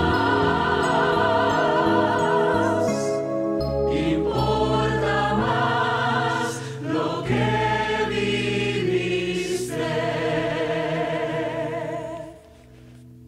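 Choir singing a stage-musical number with instrumental accompaniment, holding long notes with vibrato. The music drops away about a second before the end.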